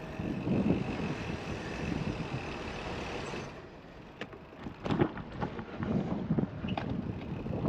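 A vehicle running, with a faint steady whine that drops out about halfway through, followed by scattered clicks and knocks.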